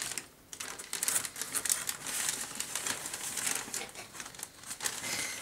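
Newspaper wrapping crinkling and rustling as hands unfold it from a package: a steady run of small dry crackles, briefly quieter just after the start.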